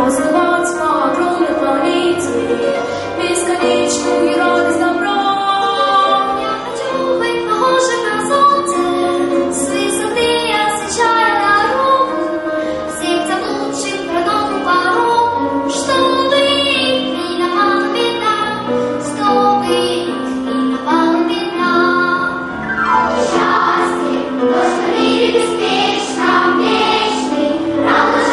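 Junior children's choir singing a song together over a steady instrumental accompaniment.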